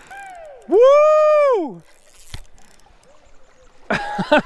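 A man gives one loud whoop about a second in. Near the end a fishing reel ratchets in quick, evenly spaced pitched clicks, about seven a second, while a hooked Chinook salmon pulls on the line.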